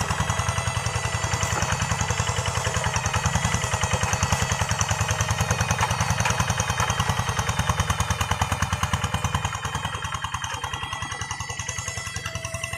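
Engine of a hand tractor working a rice paddy, running with a fast, even putter of firing strokes. It gets somewhat quieter about nine and a half seconds in.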